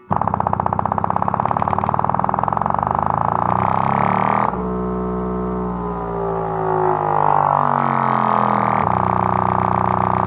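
Fredo 8-inch subwoofer playing a very low bass test signal with its cone moving hard, giving a deep, buzzy bass with many overtones. It pulses rapidly at first, changes to a deeper hum with slowly gliding tones about four and a half seconds in, and goes back to the pulsing buzz near the end.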